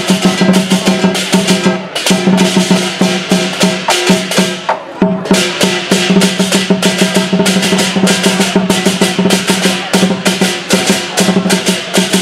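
Lion dance percussion: a drum played with clashing cymbals and a gong, beating out a fast, steady rhythm of several strikes a second.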